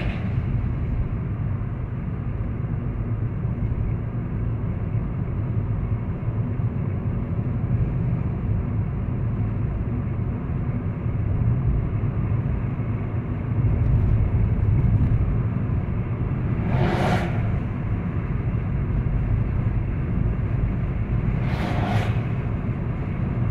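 Steady low road-and-engine rumble inside the cabin of a car cruising on a highway. There are two brief whooshing swells, one about two-thirds of the way through and one near the end.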